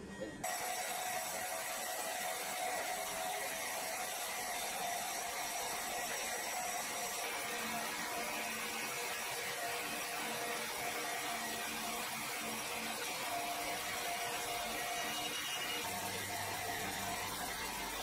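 Horizontal band sawmill cutting lengthwise through a large log: a steady mechanical running sound with an even whine, starting abruptly about half a second in.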